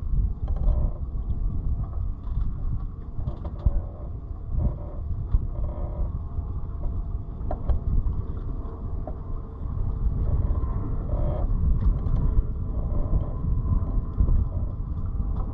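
Wind buffeting the microphone on a sailboat, a low gusting rumble that rises and falls, with a few faint clicks.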